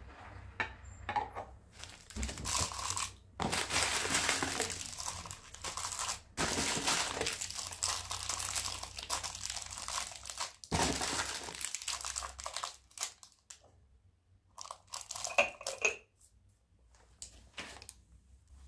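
Crinkling and rustling in long stretches, as of a crinkly material being handled, then a few scattered light knocks and clicks in the last few seconds.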